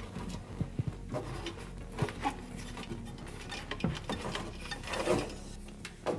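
Handling noise at a wooden cabinet: scattered light knocks, clicks and rubbing as a hand pushes the LED drawer luminaire's cable and plug through a hole drilled in the cabinet's back panel.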